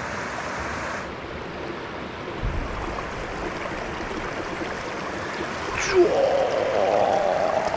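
Steady rush of flowing stream water. A short low thump comes about two and a half seconds in, and a wavering tone rises in over the last two seconds.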